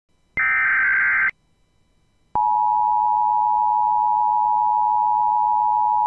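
Emergency Alert System broadcast: a roughly one-second burst of SAME header data tones encoding the Child Abduction Emergency, then, about two seconds in, the steady two-tone EAS attention signal (853 and 960 Hz sounded together) begins.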